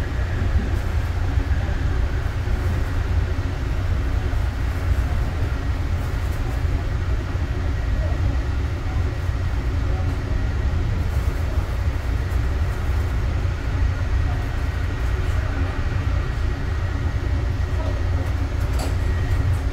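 Interior running noise of a Yongin EverLine light-rail car (a Bombardier ART train driven by linear induction motors): a steady, loud low rumble with a faint steady high whine above it.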